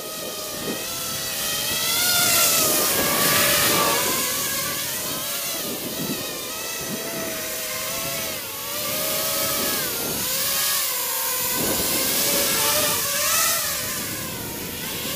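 Griffin 250 racing quadcopter's brushless motors and propellers whining in flight, the pitch rising and falling over and over as the throttle changes, louder as it passes close about two seconds in and again near the end.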